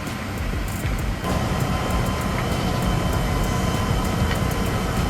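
Heavy vehicle engine running steadily with a low rumble. About a second in, the sound changes and a steady whine joins it.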